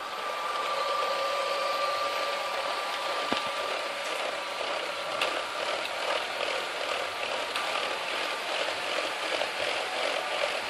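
LEGO model train running on plastic track: the locomotive's small electric motor gives a steady whine while the wheels clatter over the track joints. The whine fades in the last few seconds as the freight cars roll by, leaving a fast, even clicking of wheels on the track.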